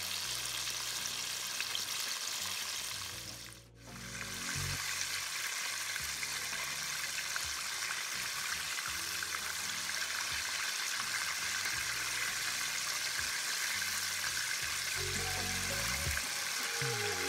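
Breaded chicken pieces deep-frying in hot oil in a pot: a steady, dense sizzle of bubbling oil that briefly drops away about four seconds in. Soft background music plays underneath.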